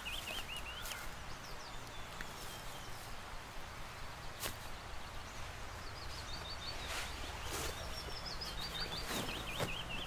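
Willow warbler singing its short phrase that slides down the scale, repeated several times. Over it come a few light knocks and rustles from footsteps and gear being set down on the forest floor.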